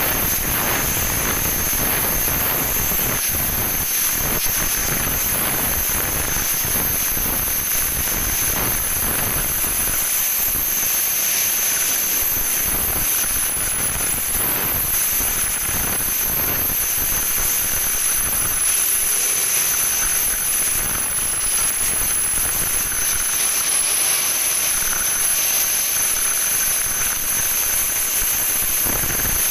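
Steady, loud industrial machinery noise with a constant high-pitched whine over it, without a break.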